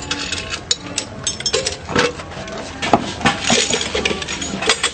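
Metal jeep parts and hand tools clanking and clinking in quick, irregular knocks as the vehicle is dismantled, with a crowd's voices underneath.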